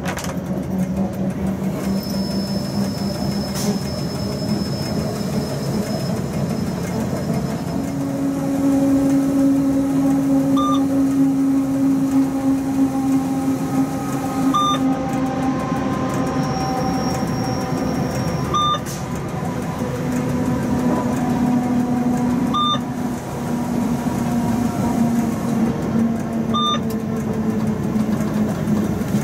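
Cab sound of a Rhaetian Railway Ge 6/6 II electric locomotive running on metre-gauge track: a steady rumble with humming tones that sink slowly as the train slows. In the second half a short electronic beep sounds every four seconds.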